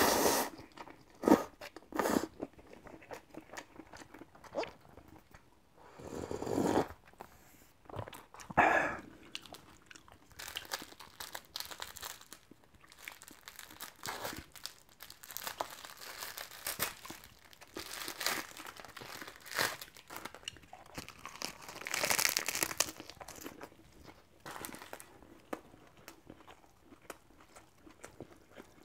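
Close-miked eating: a slurp of instant cup noodles at the start, then chewing and small clicks. Through the middle, the crinkly plastic film wrapper of a triangle gimbap crackles and tears as it is pulled open, loudest a little past two thirds of the way through.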